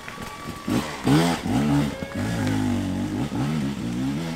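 Dirt bike engine revving, its pitch rising and falling over and over as the throttle is opened and closed.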